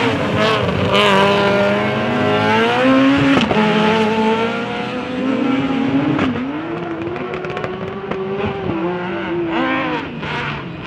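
Porsche 911 GT3 RS rally car's flat-six engine revving hard as the car slides through the corners. Its note climbs, drops with a sharp crack at a gear change about three and a half seconds in, climbs again, holds high, and falls away near the end. There is another sharp crack near six seconds.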